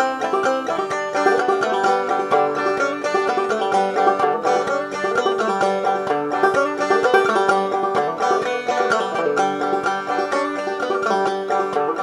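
Banjo music: a picked tune in a quick run of plucked notes.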